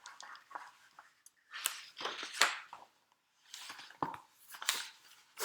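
Paper rustling with light clicks from a picture book being handled and its pages turned, in several short bursts.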